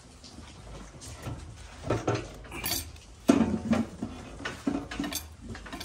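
Irregular metallic clinks and knocks of hand tools and parts being handled on a stripped-down 5.7 Hemi V8 during a camshaft swap, the loudest a little past three seconds in.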